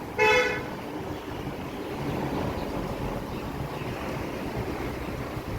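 A vehicle horn gives one short toot just after the start, then a steady background hum.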